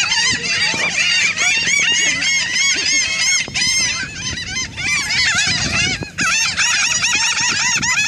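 A large flock of laughing gulls calling all at once, a dense, unbroken chatter of many short, arched cries overlapping one another.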